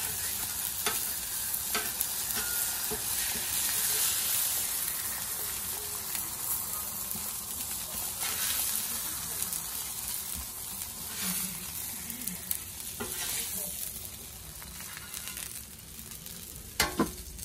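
Burgers and buttered buns sizzling on a Blackstone flat-top griddle, a steady frying hiss that grows quieter near the end. A few sharp clicks break in, the loudest near the end.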